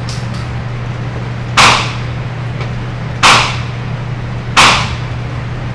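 Three gunshots, about a second and a half apart, each a sharp crack with a short echoing tail.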